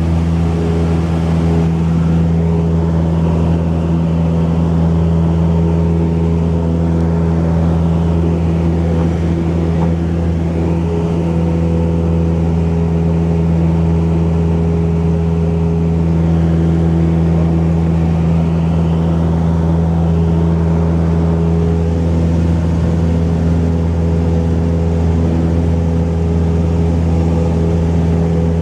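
Cessna 172 single-engine light aircraft's piston engine and propeller droning steadily at constant power, with no change in pitch or level.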